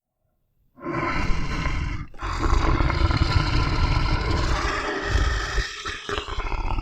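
Monster roar sound effect: a short deep roar starts about a second in, then after a brief break a longer roar carries on to the end.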